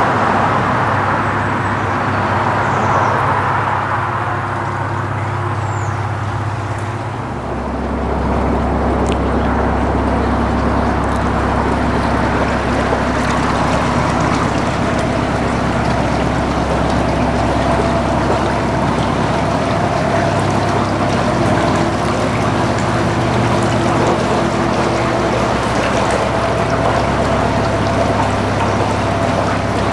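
Narrowboat's Beta Marine diesel engine running steadily under way, with water washing along the hull; the engine note changes about seven seconds in.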